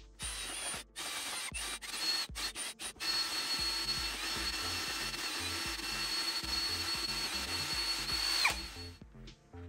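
Electric drill with a paddle mixer stirring cement mortar in a bucket. It runs steadily with a few brief stops in the first three seconds, then winds down near the end.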